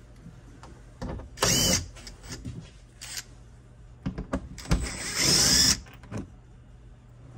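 Cordless driver spinning in two short runs, a brief one about a second and a half in and a longer one of about a second near the five-second mark, its motor speed rising and falling, as it backs out the screws holding a UTV cab's headliner. A few clicks and knocks of handling come between the runs.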